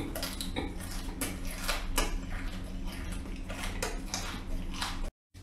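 Chewing a small whole crab shell and all, the hard shell crunching between the teeth in a quick, irregular run of crisp crunches.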